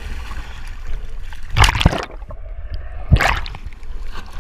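Seawater sloshing and gurgling around the microphone, with two louder splashes about a second and a half apart.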